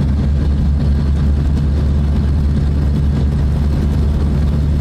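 Steady low drone of a vehicle's engine and road noise heard from inside the moving vehicle, with a constant low hum and a wide hiss over it.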